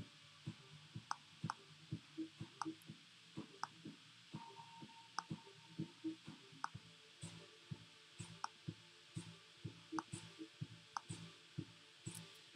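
Computer mouse clicking while editing in Photoshop: short sharp clicks at an uneven pace, two or three a second.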